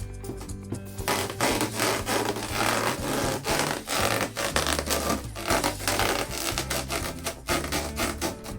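Latex balloons being rubbed and squeezed in many quick rubbing strokes, over background music with a low bass line.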